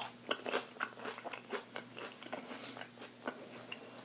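A person chewing and crunching crisp food: a run of irregular crunches, thicker in the first couple of seconds and fainter after.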